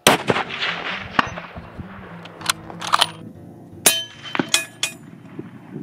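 A 6.5 Creedmoor Ruger Precision Rifle fires a single shot. Its report dies away over about a second. A string of sharp metallic clinks and clangs follows, a few of them ringing briefly.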